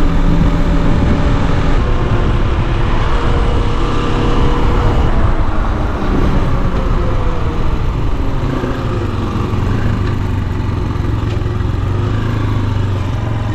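Motoland XR 250 enduro motorcycle's single-cylinder engine running under way, with wind rush over the bike. About halfway through, the engine note falls as the rider slows, then it settles into a low, steady run near the end.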